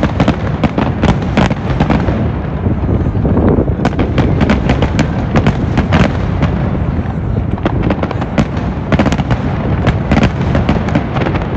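Aerial fireworks going off in a rapid, continuous barrage: many sharp bangs and crackles a second over a steady low rumble.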